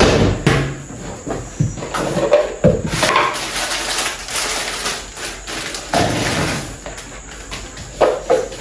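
A kitchen cupboard door knocking shut, followed by clatter and rustle of grocery packets and plastic containers being handled on a counter. Music with a steady beat comes in near the end.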